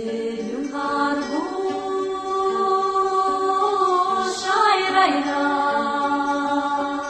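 Music: slow, chant-like singing with long held notes that slide from one pitch to the next.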